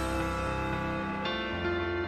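Background music: soft sustained chords, with a change of chord about a second in.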